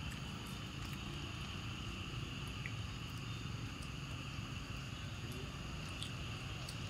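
Steady forest ambience: a constant high insect drone over a low rumble, with a few faint scattered ticks.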